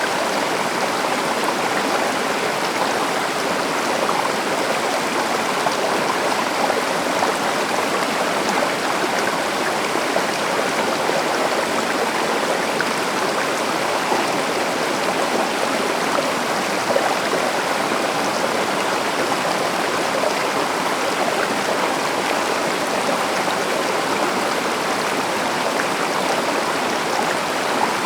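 Stream water running steadily over rocks, an even rushing with fine gurgling and no breaks.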